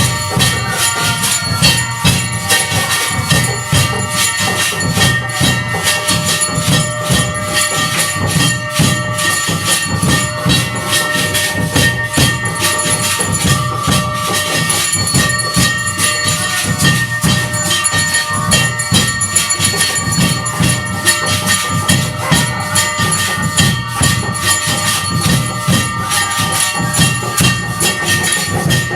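Hindu temple aarti music: bells and cymbals struck rapidly and without pause, with steady ringing tones, over a pulsing drum beat.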